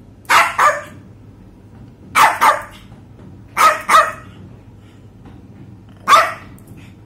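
Small white poodle barking: three quick double barks, then a single bark near the end.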